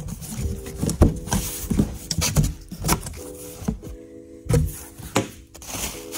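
Long cardboard shipping box being opened by hand: a string of knocks and rustles as the flaps are pulled back and the box is handled.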